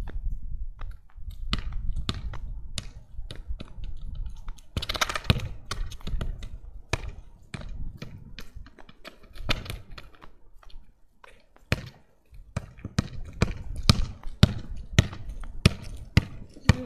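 A football bouncing on pavement: a string of sharp thuds, coming quicker and louder toward the end, over a low rumble in the first few seconds.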